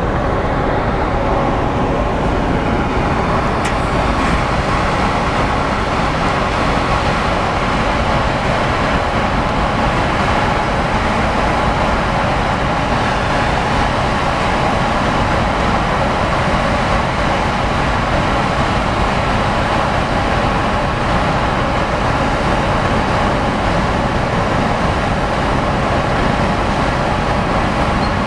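Steady drone of a passenger ferry's engines and funnel ventilation fans, a dense noise with a faint hum of a few steady tones, heard on the open deck with wind rumbling on the microphone.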